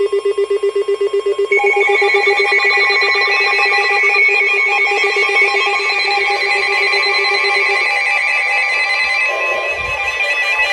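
Emergency Alert System alert tone: a rapidly pulsing low tone, joined about one and a half seconds in by several higher, rapidly trilling tones that carry on as a loud, shrill electronic alarm, announcing a severe thunderstorm warning.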